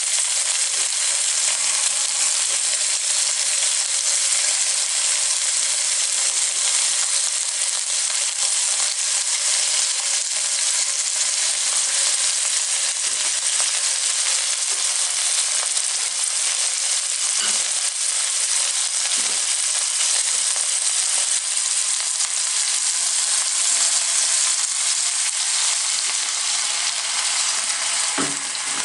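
Food frying in a pan, a steady loud sizzle, with a few faint knocks in the middle and near the end.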